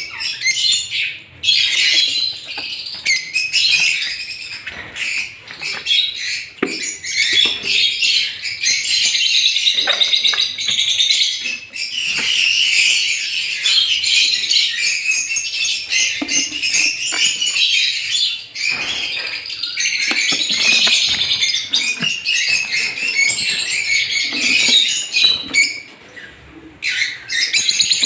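A large flock of caged lovebirds chattering and screeching together, a continuous din of high chirps with a short lull near the end.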